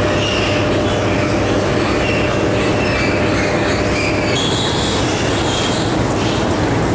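Steady, loud mechanical din inside an intensive pig shed: a constant low hum and rush of machinery such as ventilation fans, with thin high squeals wavering over it.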